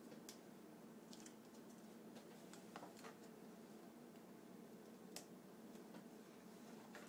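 Near silence with a few faint, sharp clicks and taps at irregular intervals, as from small plastic parts of a dismantled TV remote control being handled.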